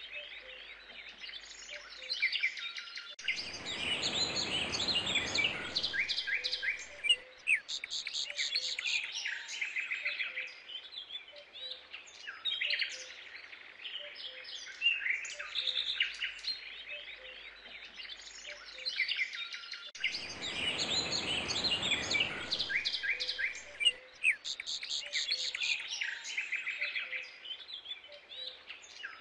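Many small birds chirping and trilling in dense, overlapping song. A rush of noise lasting a few seconds comes in about three seconds in, and again about twenty seconds in.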